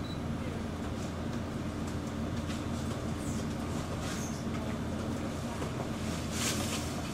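Steady low machine hum of a laboratory room, from its equipment and ventilation, with a few faint footsteps and light knocks as someone walks past close by.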